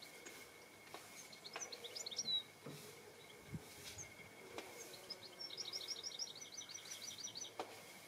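A small songbird singing: a brief phrase of quick high notes, then a few seconds later a longer fast trill of evenly repeated high notes.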